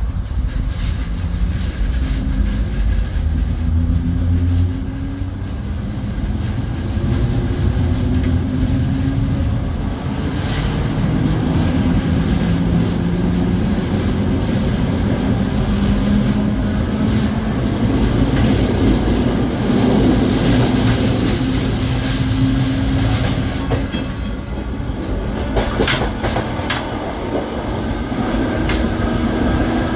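CPTM series 2100 electric multiple unit (car 2143) running: the traction motor growl climbs in pitch several times as the train gathers speed, over a low rumble and wheels clicking on the rails.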